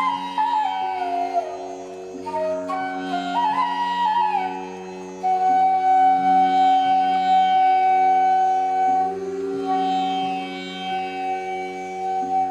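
Indian classical-style instrumental background music: a flute-like melody moving in steps over a steady drone, settling on a long held note about five seconds in.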